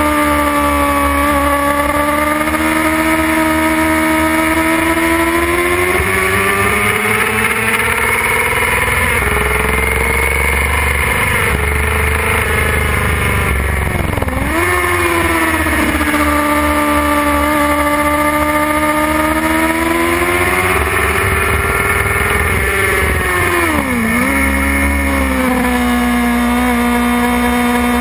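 Suzuki GSX-R 600's inline-four engine running hard at high revs, heard from onboard. The pitch climbs slowly, then dips sharply and comes back up twice, about halfway and near the end.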